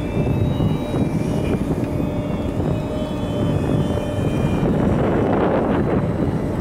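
Strong wind buffeting the microphone: a steady low rumble, with faint thin high tones in the first few seconds.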